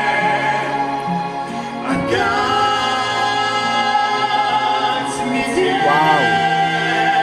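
A Russian pop ballad duet playing: sung vocals holding long notes over instrumental accompaniment, with a held note wavering in vibrato about six seconds in.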